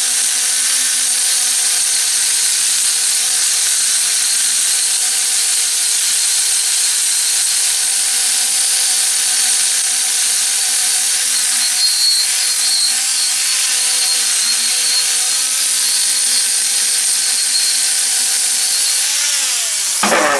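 Angle grinder with a wire wheel scouring old paint off the cast-iron bed of a Hercus 9-inch lathe: a steady motor whine under a high, harsh hiss. Near the end it is switched off and the whine falls away as it winds down.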